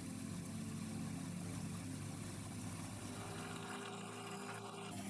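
Horizontal metal-cutting band saw running and cutting through a round steel rod: a steady motor hum under the even hiss of the blade in the cut.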